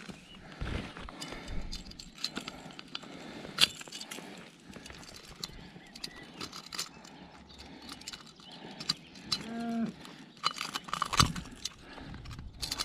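Scattered clicks, knocks and rustles as a jack pike is handled and a lure is worked free of it among bankside vegetation. About three-quarters of the way through comes one short moo from cattle, rising and falling.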